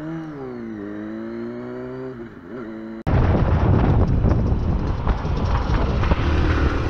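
A motorcycle engine pulls away: its pitch rises, drops with a gear change and climbs again. About three seconds in there is a sudden cut to loud wind rushing over a helmet-mounted microphone while riding, with the engine buried beneath it.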